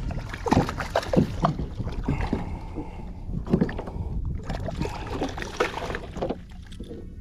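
Water splashing and knocks against a kayak hull, in irregular clusters of sharp bursts that settle near the end.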